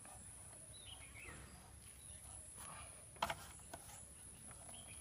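Faint background with a few bird chirps about a second in, then a couple of quick metallic clicks about three seconds in: an open-end spanner knocking on the motorcycle's 19 mm front axle nut as it is tightened.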